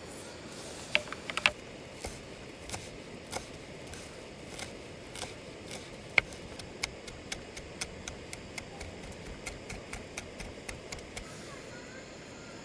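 A series of sharp, irregular clicks and taps of small hard objects, about one to three a second, coming closer together past the middle.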